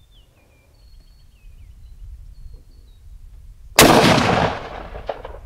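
A single shot from an Enfield Arms Genesis One rifle in .223 Remington, about four seconds in: a sudden loud crack that trails off over about a second.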